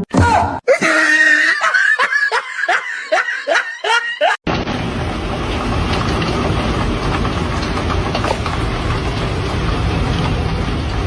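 A person laughing in a run of short, quick bursts, then an abrupt cut to a steady, loud rushing noise.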